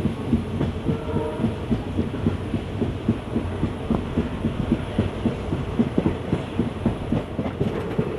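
Passenger train running along the track: a steady low rumble with a quick, uneven rattle and knocking of wheels and coaches on the rails.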